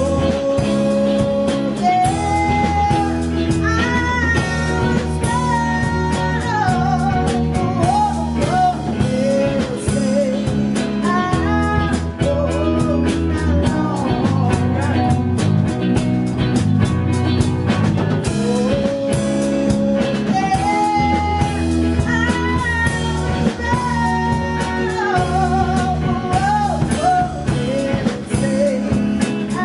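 Live blues-rock band playing: electric bass, electric and acoustic guitars, keyboard and drum kit, with a bending lead melody line over them.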